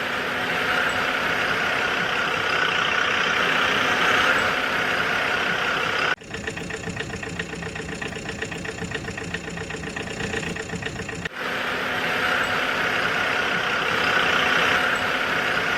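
A heavy machine's engine running steadily; the sound breaks off abruptly and resumes twice, about six and eleven seconds in.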